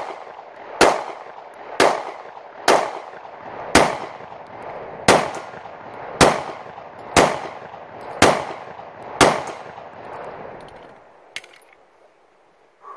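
Polymer80 Glock 26 build, a 9mm subcompact pistol, fired in a steady string of about ten shots roughly one a second, each shot followed by a ringing echo. After the last shot come a few small metallic clicks near the end as the emptied pistol is handled.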